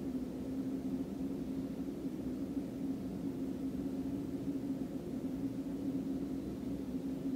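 A steady low mechanical hum with a constant tone, unchanging throughout.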